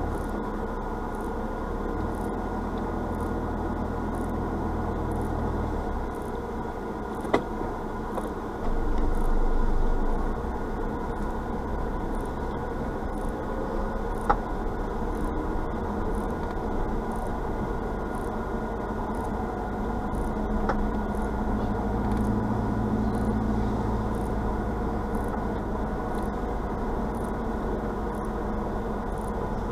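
Car engine running and road noise as the vehicle drives slowly, heard from inside the cab, with two sharp clicks along the way.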